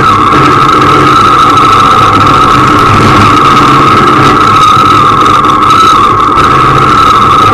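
Motorcycle engine running steadily at an unchanging pitch while riding, with a constant high drone and rushing noise over it.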